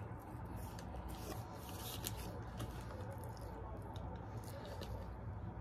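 Close-up chewing of a bacon burger: scattered wet mouth clicks and smacks, with light crinkling of the paper wrapper as it is handled.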